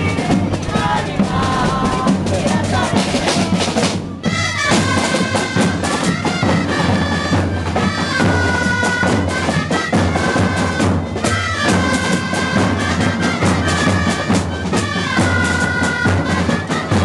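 Gralles (Catalan shawms) and drums playing a lively dance tune: a nasal reed melody of held notes over a steady drumbeat, with a brief break about four seconds in before the tune carries on.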